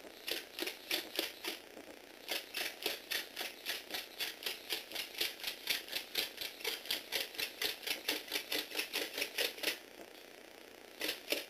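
Motorized Lego Technic robot clattering as it moves over a wooden floor: a quick, even run of plastic clacks, about five a second. There is a short break about two seconds in, the run stops near the end, and then there are two more clacks.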